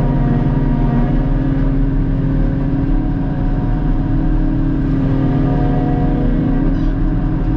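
Forage harvester and its engine running steadily while chopping grass silage, a constant mechanical drone.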